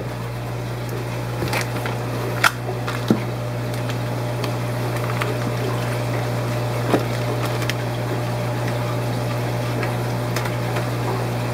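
Steady hum and running-water noise of the aquarium pumps and filtration in a fish room, with a few light clicks and taps from handling.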